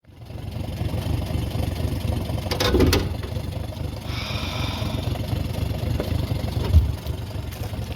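Small boat's outboard motor running steadily, a low engine rumble with water and wind noise.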